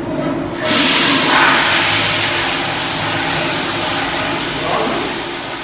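Toilet in a public restroom flushing: a loud rushing whoosh that starts suddenly under a second in and slowly tapers off.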